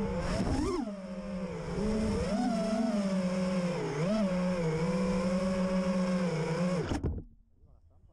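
FPV freestyle drone's motors and propellers whining, the pitch swelling up and down with throttle changes, then cutting off suddenly about seven seconds in.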